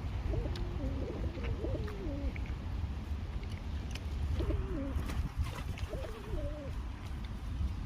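Pigeons cooing, wavering low calls in two spells, the second starting a little after the middle, over a steady low rumble.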